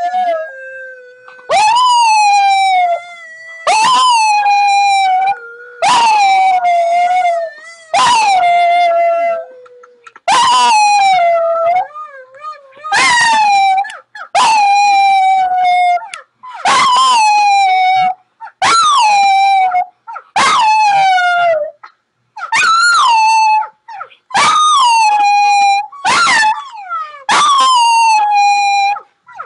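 Small dog howling: one long drawn-out howl at the start, then a run of short howls about every two seconds. Each of the short howls jumps up in pitch and slides down again.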